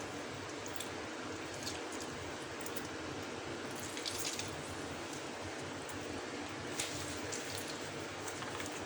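Half a lemon being squeezed over raw chicken coated in spice and flour, its juice dripping onto the coating in a few faint wet ticks over a steady hiss.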